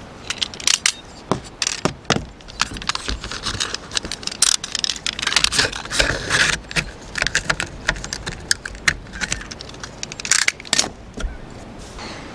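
A utility knife cutting and scraping through old silicone sealant around a boat's deck hatch frame, a dense run of sharp clicks and scrapes from the blade and tools on the frame.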